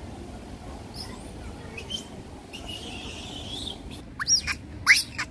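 Young macaque giving a quick run of short, high squeals, each sweeping sharply up and back down, starting about four seconds in.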